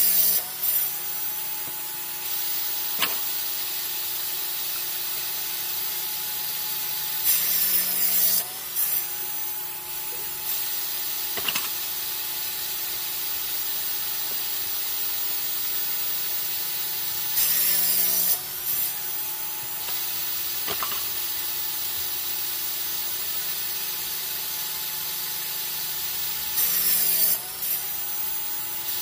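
Homemade table saw's circular blade spinning with a steady whine, crosscutting wooden boards about every nine to ten seconds; each cut is loud and pulls the motor's pitch down under load, which then recovers. A sharp knock sounds once between cuts.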